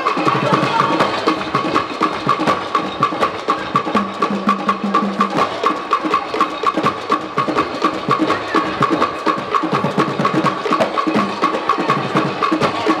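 Traditional Igbo percussion music for a dance: a fast, even run of sharp wood-block-like clicks over drums, with a steady high tone held throughout.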